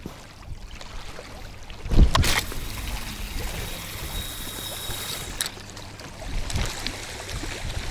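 Long cast with a feeder rod: a swish about two seconds in, then the line hisses off the spinning reel's spool for about three seconds and stops abruptly as the cast is checked. Small waves lap in the background.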